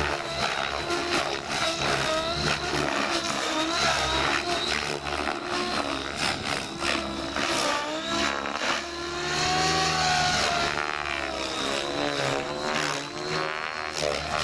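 Radio-controlled model helicopter flying aerobatic manoeuvres. Its rotor and motor sound rises and falls in pitch as it swoops and turns, with a steady high whine underneath.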